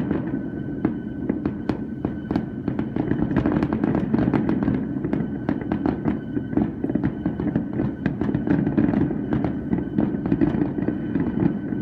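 Fireworks show going off: a dense, continuous run of bangs, pops and crackles over a steady low rumble, with no let-up.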